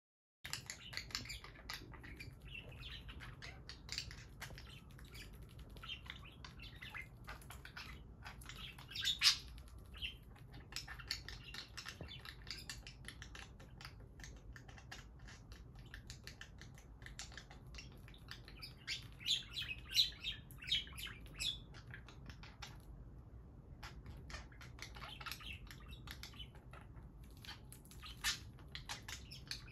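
Two budgerigars chattering to each other in a continuous run of quick chirps and warbles. It is loudest about nine seconds and twenty seconds in, with a short pause a little after twenty-two seconds.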